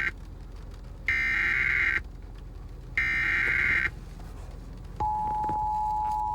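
Emergency Alert System SAME header data bursts for a severe thunderstorm warning: the end of one harsh buzzing burst, then two more, each just under a second and about a second apart. About five seconds in, the EAS two-tone attention signal starts, a steady tone on two close pitches.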